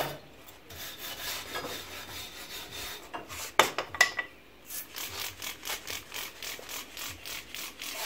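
Hand wire brush scrubbing the bead seat of a steel truck wheel rim in quick back-and-forth strokes, cleaning it before a tire is mounted. Two sharp clacks about halfway through.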